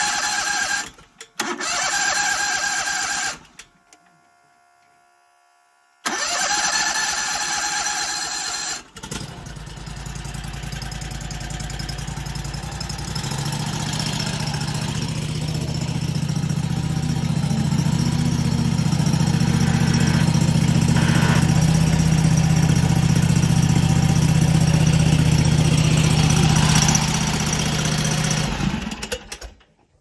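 The mini skid steer's 739 cc engine being cranked by its electric starter: three cranking attempts with short pauses, catching on the third about nine seconds in. It then runs steadily, growing louder over the next several seconds, and dies away near the end.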